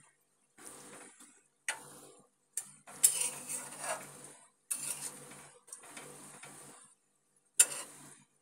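A flat spatula stirring a thick fish and taro curry in a metal pot: about six scraping strokes with short gaps between them, some starting with a sharp knock of the spatula against the pot.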